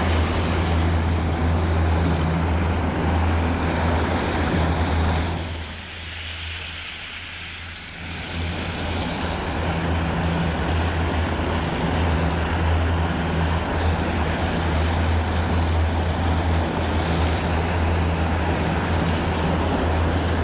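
Boat engine running steadily under way, a deep constant hum with wind and water rushing over it. About five seconds in, the sound dips for a couple of seconds, then comes back up.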